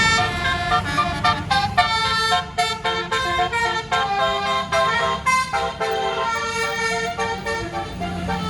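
A 24-note basuri telolet bus horn, a multi-trumpet air horn, playing a quick melody note after note, with a low hum underneath.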